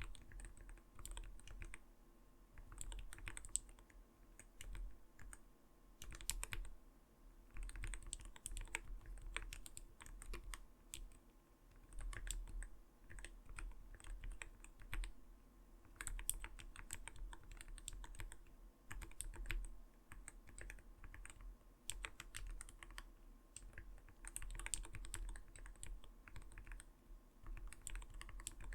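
Typing on an Arbiter Studio Polar 65 mechanical keyboard: a continuous patter of keystrokes with a soft knocking 'koto-koto' sound, coming in runs with brief pauses.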